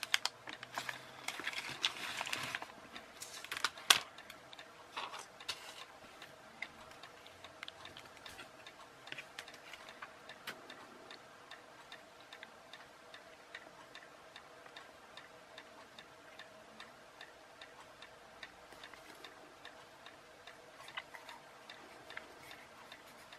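Plastic component bags crinkling as they are handled for the first few seconds, a sharp click about four seconds in, then faint, even, regular ticking over a low steady hum.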